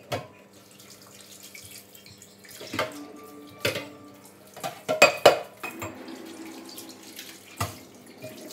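Kitchen tap running into a stainless steel sink while dishes are rinsed, with a series of sharp clinks and clatters of dishware against the sink, the loudest two about five seconds in.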